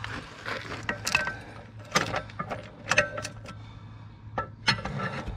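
Sharp metallic taps and clinks, about five spread over a few seconds, from hand tools striking and working on the International 1066's wheel hardware while the loose wheel's wedges are tightened. A low steady hum runs underneath.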